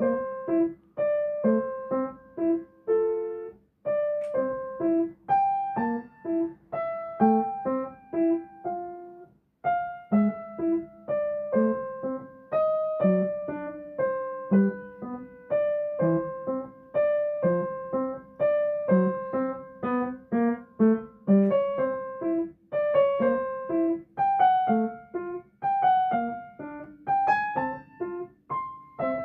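Background piano music: a gentle melody of separate plucked-sounding notes over a simple accompaniment.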